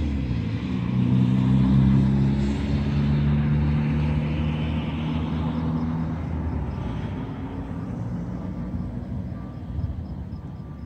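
A road vehicle passing, its engine note loudest about two seconds in and fading away over the next several seconds.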